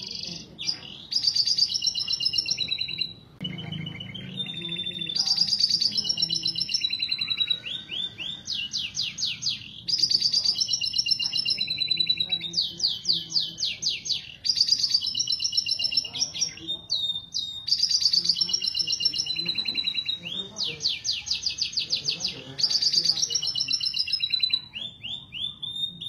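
Domestic canary in full breeding song: fast rolling trills alternate with held whistled notes and quick sweeps, phrase after phrase with barely a pause. It is the vigorous song of a male canary in breeding condition, played as a lure to bring canaries into mating.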